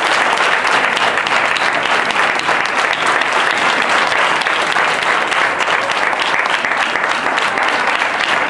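Audience applauding: a crowd's dense, steady clapping.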